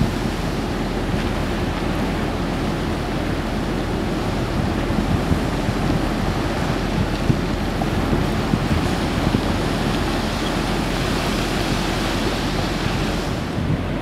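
Steady low rushing of wind buffeting the microphone, mixed with the wash of the sea, with no distinct events.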